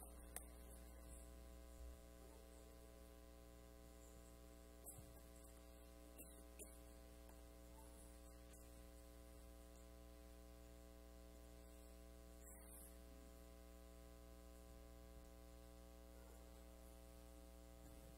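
Near silence with a steady electrical mains hum, a stack of low steady tones, and a few faint clicks.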